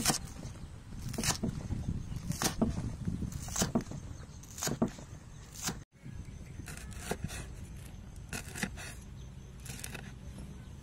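A cleaver chopping green onions, then red chillies, on a thick wooden chopping block: single sharp knocks about a second apart, with a brief gap about six seconds in.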